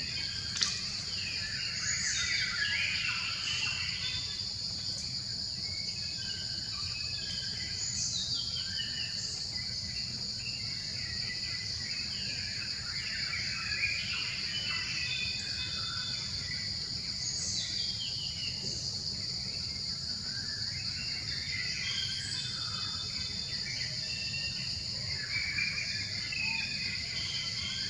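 Outdoor nature ambience: a steady high-pitched insect drone with many short chirping calls, many of them falling in pitch, scattered over it, and a sharp tick about half a second in.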